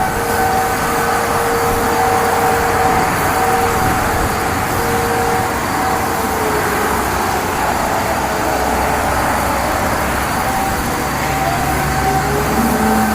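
Failing Sentry 15V2T-B dual-tone outdoor warning siren. Its two steady notes sag, glide down and fade about five seconds in, then rise again near the end, over a steady noise of road traffic.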